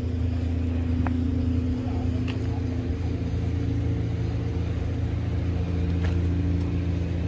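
Steady low engine rumble, an even drone that holds constant throughout, with a few faint clicks.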